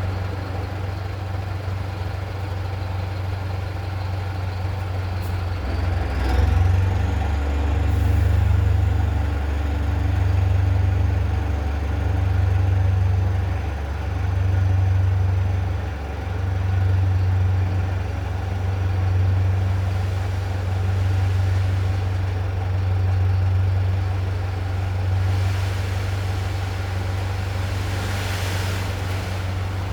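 Mercedes-Benz 1718 dump truck's straight-piped turbo diesel engine running at idle, then about six seconds in revving up as the turbo whistle rises and holds high. The raised engine speed is what drives the hydraulics to tip the bed. The revs swell and sag every couple of seconds, and a hiss comes near the end.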